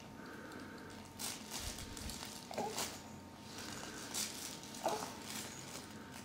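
A baby moving on all fours on a padded fabric play mat: soft scattered rustling and scuffing, with two short squeaky grunts about two and a half and five seconds in.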